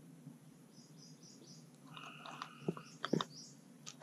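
Small birds chirping and calling in a quiet swamp, short high chirps with one held call about two seconds in. Two sharp knocks about two and a half and three seconds in stand out as the loudest sounds.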